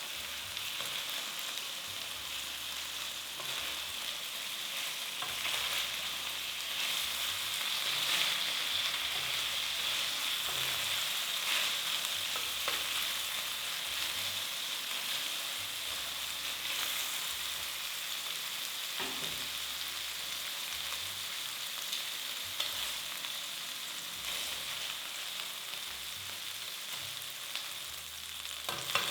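Food sizzling steadily in a hot frying pan, with a few short knocks or scrapes of a utensil stirring it now and then.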